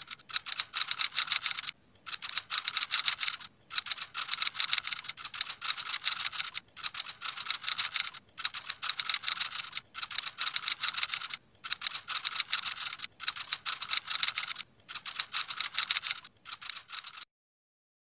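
Keyboard typing sound effect: rapid dense clicking in runs of a second or two with brief pauses between, stopping shortly before the end.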